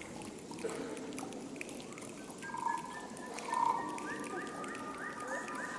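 Jungle ambience of frogs croaking over a dense background of animal calls. From about four seconds in, short rising calls repeat about twice a second.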